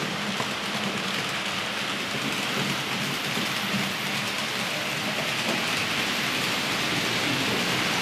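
HO-scale model train of red double-deck coaches running along the layout's track: a steady rolling noise of small wheels on the rails, growing slightly louder later on.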